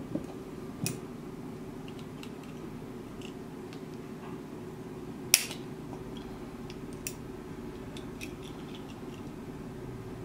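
Excess 26-gauge Kanthal coil wire being snipped off with cutters: a few sharp, scattered clicks and small ticks, the loudest about five seconds in, over a steady low hum.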